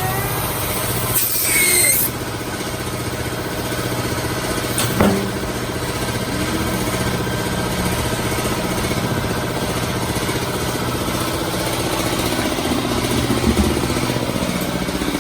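A motor running steadily with a low even hum, with a short hiss about a second in and a single sharp knock around five seconds in.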